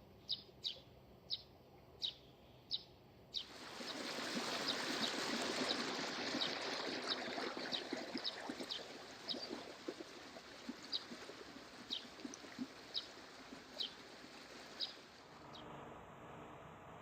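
A bird gives short high chirps, one about every two-thirds of a second. About three seconds in, a steady rush of water noise starts under it and fades near the end.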